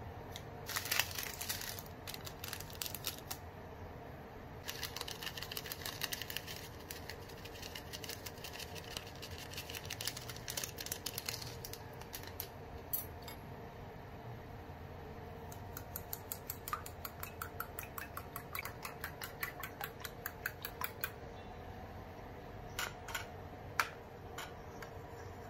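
A fork beating eggs in a ceramic bowl: a fast, even run of clinks against the bowl lasting several seconds in the second half, with a few single clinks near the end. Earlier come two stretches of dense rattling and clicking while seasoning is shaken over the eggs.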